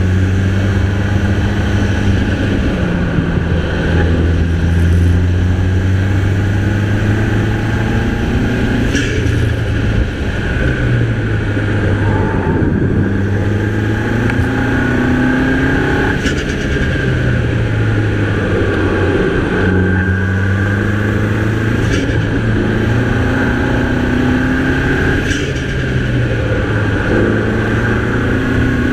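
Mini Cooper's 2.0-litre turbocharged four-cylinder engine under way on a winding road, its pitch climbing slowly and then dropping back several times as it accelerates and eases off. A few short sharp sounds cut in along the way.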